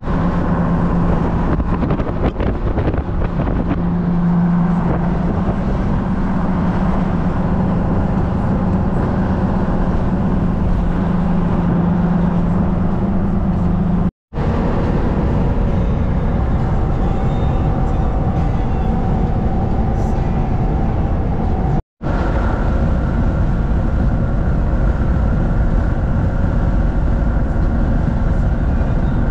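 Steady road noise inside a moving car at highway speed: a continuous rush of tyre and wind noise with a low steady engine drone through the first half. The sound cuts out for an instant twice.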